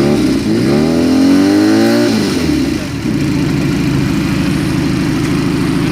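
Benelli TNT 250 motorcycle engine on its stock exhaust, revved once with a rising pitch, then dropping back to a steady idle about two seconds in.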